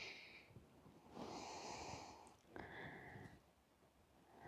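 A few faint breaths of a person exercising, each lasting about a second, against near silence.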